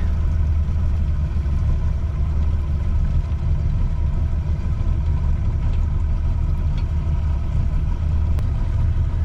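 Boat's outboard motor running steadily at low throttle, a deep even drone.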